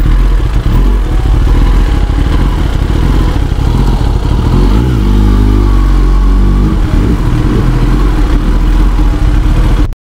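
Kawasaki Ninja ZX-10R inline-four running through an Akrapovic full-system exhaust at low speed. The engine note dips and rises briefly about halfway through.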